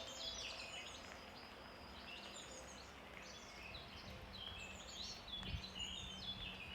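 Faint birdsong: quick, repeated chirping phrases of small songbirds over a low outdoor hiss.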